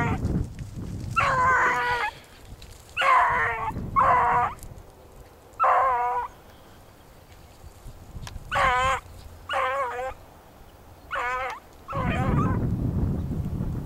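A hunting hound baying: about eight drawn-out, wavering bays, each under a second long, spaced unevenly. Wind rumbles on the microphone at the start and again near the end.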